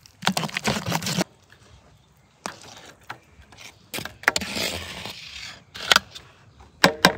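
Wire masher scraping strawberry pulp against a stainless mesh sieve for about a second, cut off suddenly. Then softer wet scraping as strawberry pulp slides from a metal bowl onto a baking tray, with a few sharp metal clinks near the end.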